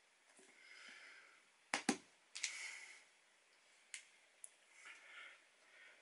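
Snap-on plastic lid being pressed onto a clear plastic deli cup: two sharp clicks close together about two seconds in, then a few lighter clicks, with soft handling noise in between.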